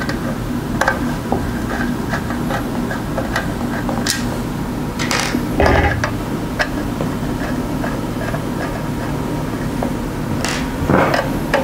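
Small screws and a Phillips screwdriver clicking and tapping as screws are backed out of a variac's metal cover and handled on the table. There are a couple of louder knocks, about five seconds in and near the end. A steady hum runs underneath.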